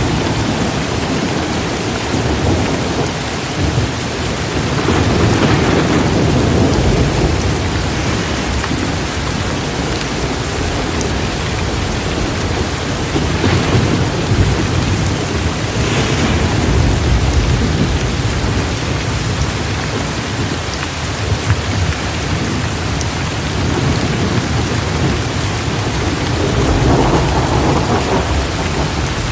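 Heavy rain pouring steadily, with rolling thunder that swells and fades several times.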